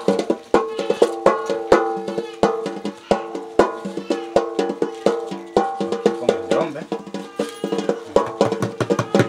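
Drum played in a steady, fairly quick rhythm of about three strokes a second, each stroke ringing on with a held tone.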